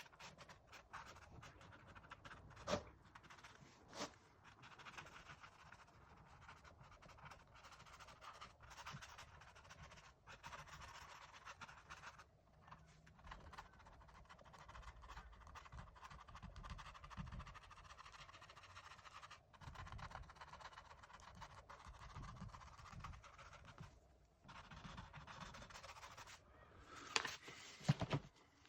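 Paintbrush scratching over canvas in irregular strokes, with a few sharp taps, the loudest near the end.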